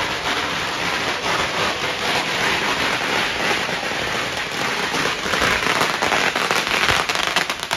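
A long string of firecrackers going off in a continuous, rapid crackle of bangs.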